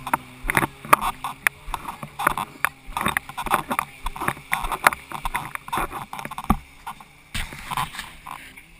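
Irregular knocks, rubbing and scraping on a handheld action camera's waterproof housing as it is carried and handled, with a faint low steady hum beneath that fades out near the end.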